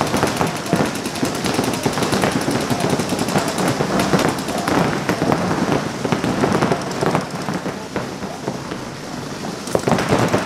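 Paintball markers firing rapidly, many shots overlapping in a dense, continuous crackle.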